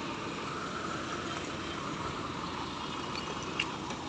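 Steady hum of vehicle engines and traffic at a road construction site, with one short sharp click about three and a half seconds in.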